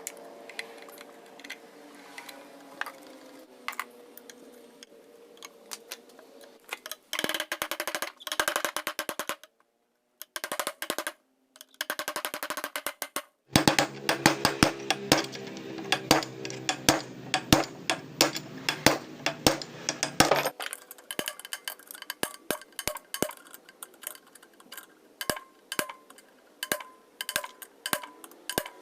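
Irregular clicks and clinks of small metal parts and tools while a Butterfly sewing machine is taken apart, with stretches of background music.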